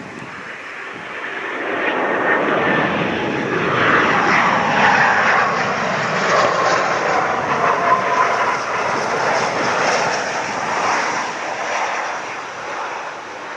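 Twin turbofan engines of a Gulfstream V-family business jet on landing approach with gear down, passing close by. The jet noise swells over the first few seconds, a whine falls in pitch as it goes past, and the sound then fades as it heads for the runway.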